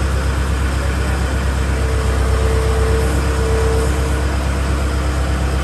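Forklift engine idling steadily while the dyno roller is being set in place. A steady higher whine joins about two seconds in and drops out about two seconds later.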